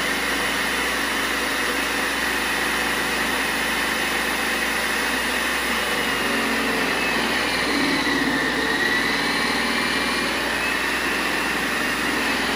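Veggie Bullet electric food processor motor running steadily while collard greens are fed down its chute and shredded. Its whine dips in pitch for a moment about eight seconds in, as the plunger presses the greens down.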